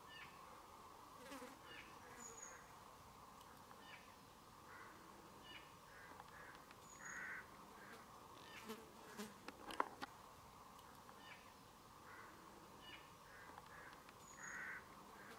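Near silence: a faint, steady insect hum with scattered short, high bird chirps every few seconds and a few soft clicks about ten seconds in.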